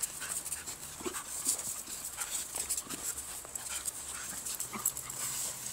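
Dogs playing, with short whimpers among scattered scuffling steps on a dirt path.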